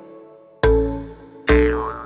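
Playful background music: two plucked notes with a deep bass hit each, the second about one and a half seconds in carrying a wobbling, falling boing-like glide.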